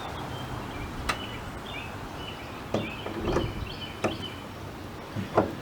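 Hinge pin removal tool's metal parts being handled while it is changed over to the next size pin: a handful of separate sharp clicks and clinks, a second or so apart. Birds chirp faintly in the background.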